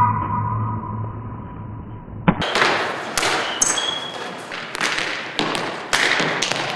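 A muffled hum with a held tone cuts off about two seconds in. After that comes a reverberant gym with a volleyball being struck and slapping the wooden floor several times, and a brief high squeak.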